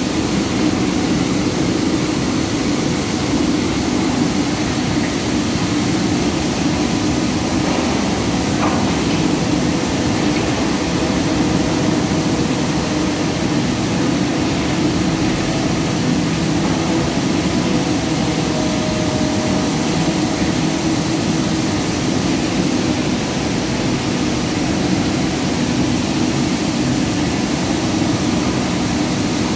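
Palm oil mill machinery running, with a conveyor carrying fresh fruit bunches into a large steel drum: a loud, steady industrial drone with a low hum and a few faint steady tones.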